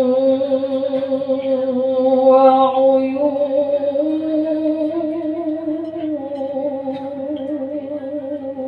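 Quran reciter's voice holding one long melodic phrase with vibrato, in the drawn-out ornamented style of murattal/mujawwad recitation; the pitch steps up a little past the middle, drops back down, and the voice slowly gets quieter near the end.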